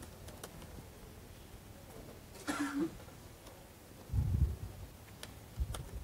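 Faint typing on a laptop keyboard, with scattered single keystroke clicks, a brief short noise about halfway through, and dull low thumps about four seconds in and again near the end.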